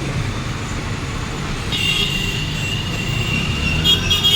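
Square steel pipe being bent on a bending machine, with a steady low machine rumble. About two seconds in a high metallic squeal sets in as the pipe is forced around the bend, and a few sharp clicks come near the end.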